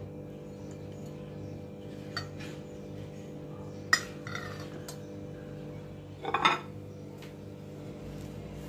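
Stainless-steel plate and bowl clinking against a glass bowl while cooked rice is tipped out and pressed into shape: a light clink about two seconds in, a sharp clink about four seconds in, and a short rattle of clanks about six and a half seconds in, over a steady low hum.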